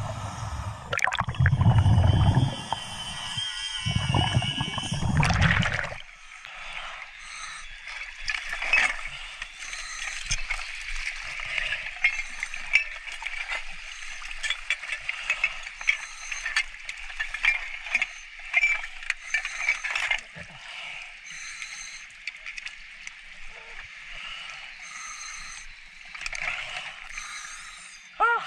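Underwater, scuba exhaust bubbles rumble in three loud surges for the first few seconds. After surfacing there is water splashing and dripping, with a steady hiss and many small clicks and knocks.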